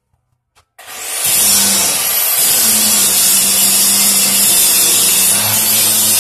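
Electric angle grinder switched on about a second in, spinning up, then grinding down a metal window grille: a loud, steady whine with a grinding hiss.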